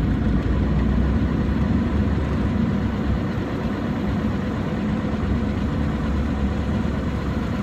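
Diamond DA40 light aircraft's engine and propeller running steadily at low power, heard inside the cockpit as the plane rolls along the runway after touchdown.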